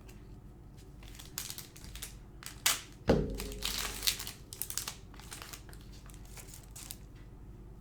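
Foil trading-card pack wrapper crinkling and being crushed in the hands, with a dull thump about three seconds in.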